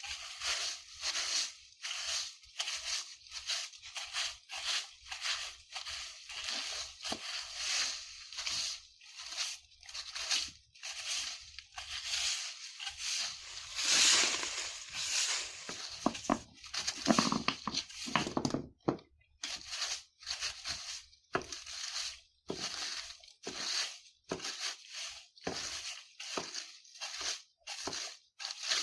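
Broom sweeping dry fallen leaves on the ground: repeated scratchy rustling strokes, about two a second. A heavier, lower crunch of leaves comes around the middle.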